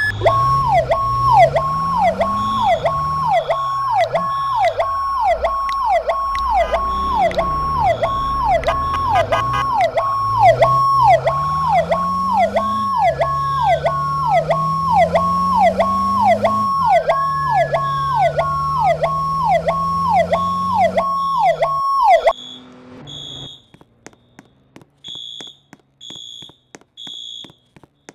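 Fire apparatus sirens: a fast, repeating yelp of about two cycles a second, with a slower wailing siren rising and falling over it and low rising sweeps beneath, all cutting off suddenly about 22 seconds in. After that a building fire alarm keeps beeping faintly in an even pattern.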